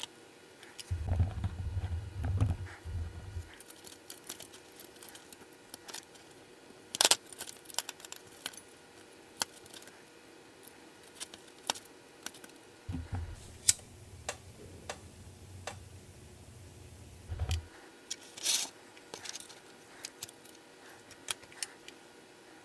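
Scattered light clicks and ticks of small wires, tools and metal parts being handled on a workbench during rewiring. Two spells of low rumble come in, the first soon after the start and the second past the middle.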